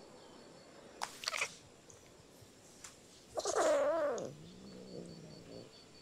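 Domestic cat vocalising: a short harsh burst about a second in, then about halfway through a louder wavering yowl that drops in pitch into a low growl.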